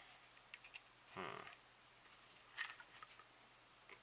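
Near silence: room tone with a few faint taps and scrapes from hands handling a soft vinyl kit part, and one brief faint sound about a second in.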